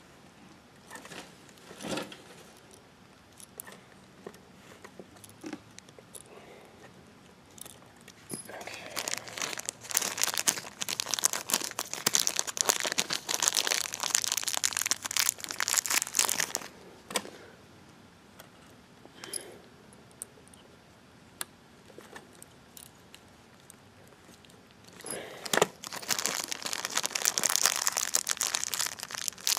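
Dense crackling, scraping handling noise as a hard drive and its metal drive bracket are handled and screwed together. It comes in one stretch of about eight seconds starting about a third of the way in, and another near the end, with scattered light clicks between.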